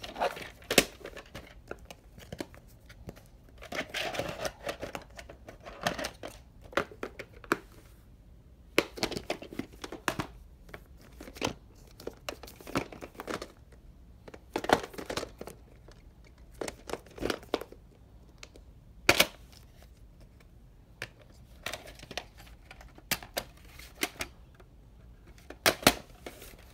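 Plastic VHS cassettes and clamshell cases being handled: irregular sharp clicks and clacks of hard plastic, with short bouts of plastic rustling and creaking between quieter gaps.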